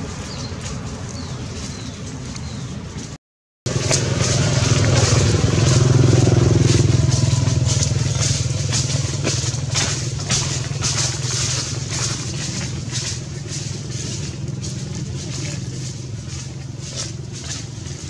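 A motor vehicle's engine running steadily, swelling a few seconds in and then slowly fading, with scattered short clicks over it. The sound cuts out completely for a moment about three seconds in.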